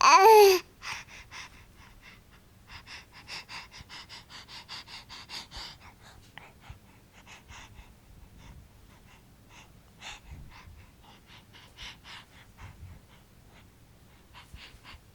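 A five-month-old baby gives one short, loud, high-pitched shriek that falls in pitch, then breathes in a long run of quick, rapid gasps and pants.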